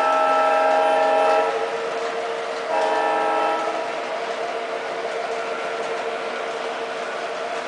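Sound system of an MTH ProtoSound diesel model locomotive sounding its multi-note air horn: one long blast that ends about a second and a half in, then a short blast about a second later. Under it, the locomotive's steady diesel running sound carries on throughout.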